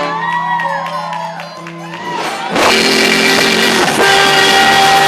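Music: a quieter opening of held notes and sweeping tones, then about two and a half seconds in the full music comes in loudly with long held notes.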